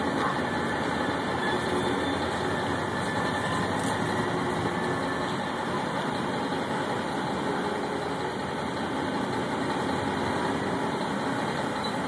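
CSX diesel locomotive running steadily at low throttle during a slow switching move, an even engine noise with no horn or sudden sounds.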